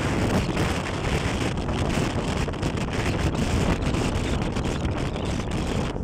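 Wind rushing over the microphone of a moving vehicle, a steady low rush with frequent buffets, over the running noise of the vehicle.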